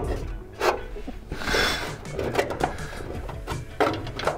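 Scattered clicks, knocks and rubbing as metal parts and bolts are handled up at a car's subframe, with a short rustle about a second and a half in.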